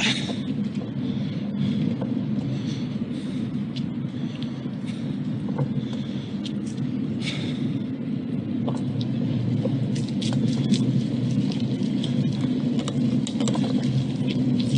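Bicycle being ridden along a wet path: a steady low rumble of the tyres and bike carried through the camera mount, with scattered small clicks and ticks.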